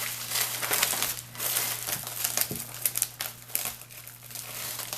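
Packaging crinkling and rustling as it is handled and pulled open by hand, loudest in the first second or so and then softer and patchier.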